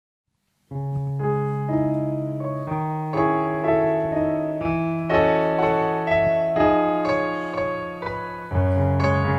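Slow instrumental piano introduction: sustained chords begin about a second in, after a moment of silence, with a new chord struck roughly once a second.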